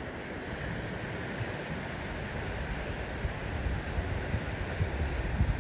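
Steady wash of surf on a shallow reef beach, with wind rumbling on the microphone.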